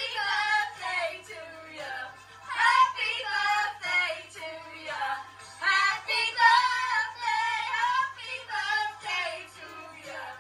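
Women and children singing together, with some notes held for about two seconds in the middle.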